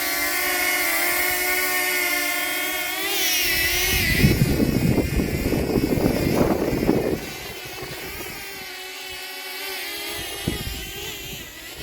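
DJI Flip drone's propellers whining as it hovers, several tones together, the pitch wavering and jumping about three seconds in as the motors fight the wind. Wind buffets the microphone with a loud rumble for about three seconds, then the whine goes on more quietly.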